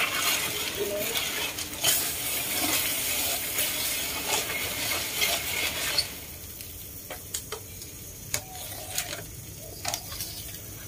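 A big pot of small freshwater clams (hến) at the boil being stirred with a metal slotted skimmer, a dense hissing churn of shells and bubbling water. About six seconds in it drops away sharply, leaving scattered clinks and taps of the skimmer against the pot.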